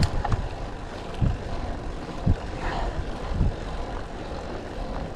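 Wind rumbling and hissing on the microphone while a road bike climbs a steep ramp, with several low thumps about a second apart.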